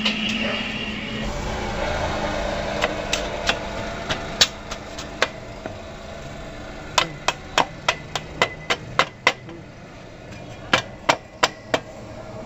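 Hammer striking at a motorcycle swingarm pivot, seating the swingarm on its newly fitted metal and fibre bushes: sharp taps in uneven runs, a few at first, then a quick run of about eight, then about five more near the end.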